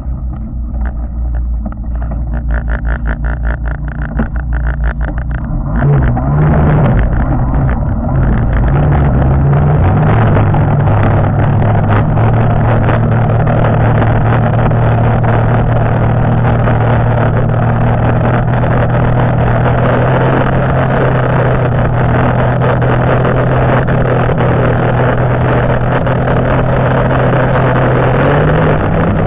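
Two-stroke engine of a 1992 Arctic Cat Panther snowmobile, running slowly with an even pulse, then opening up about six seconds in and running steadily at speed. Heard through a waterproof camera case on the back of the sled, which makes it sound like a four-stroke.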